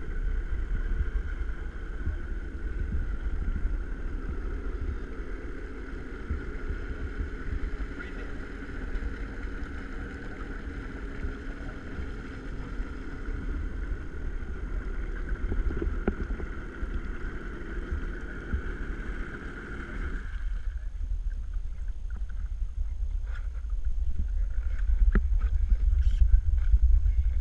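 Watercraft engine running steadily with a constant whine, shutting off about twenty seconds in. A low rumble of wind and water on the microphone continues, with a few light knocks near the end.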